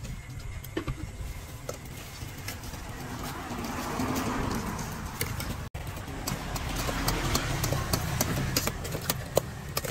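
Metal spoon clinking and scraping against a stainless steel mixing bowl as a seafood salad is stirred and tossed, with many short clinks in the second half. A steady low engine rumble runs underneath.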